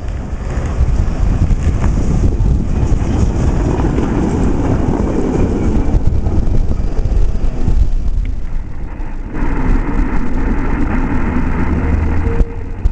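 Tram passing close by, a heavy rolling rumble of its wheels on the rails, with wind buffeting the microphone. The sound changes abruptly about eight seconds in and again about a second later.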